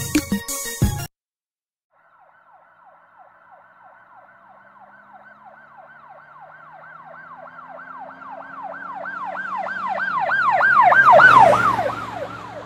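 Emergency vehicle siren in a fast yelp, a tone that quickly rises and falls over and over, growing steadily louder as if approaching and loudest near the end. It comes in after hip-hop music cuts off about a second in, followed by a moment of silence.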